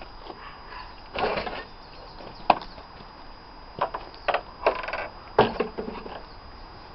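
Irregular knocks, clunks and sharp taps, like parts and tools being handled, with a short buzzy rasp about five seconds in.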